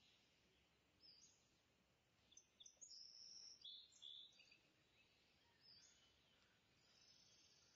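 Near silence: faint room tone with scattered faint, high-pitched chirps, most of them between about one and four and a half seconds in.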